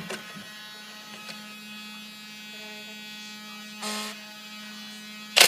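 Steady electric motor hum, typical of a motorised Nerf blaster's flywheels spinning, with a short whoosh about four seconds in and a loud sharp burst at the very end as the dart is fired.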